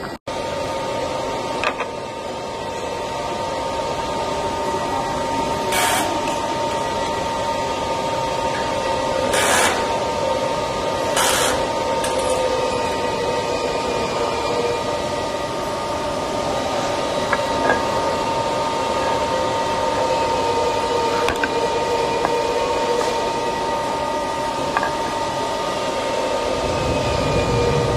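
Six-sided CNC drilling machine running: a steady machine noise with a high, even whine, broken by three short hissing bursts, at about six, nine and a half and eleven seconds in, and a few faint clicks.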